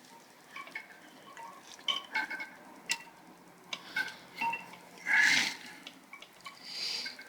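Small metallic clinks and taps as the stock cam tensioner bolt on a KTM 250 EXC-F engine is unscrewed by hand and drawn out, with a brief louder noise about five seconds in.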